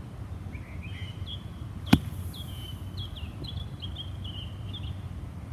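A 54-degree wedge slamming down into bunker sand just behind a plugged ball, heard as one sharp thud about two seconds in: a steep chopping blow with the leading edge that pops the buried ball out. Birds chirp in the background.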